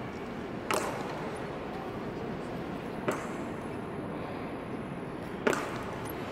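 Honor guards' boots striking a marble floor in a slow high-stepping march: three sharp, ringing stamps about two and a half seconds apart, over the steady murmur of a crowd.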